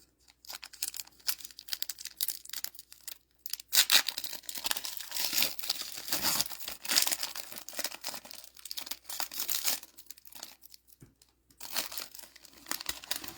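Plastic wrapper of a trading-card booster pack being torn open and crinkled off: a run of tearing and rustling, busiest in the middle and easing off near the end.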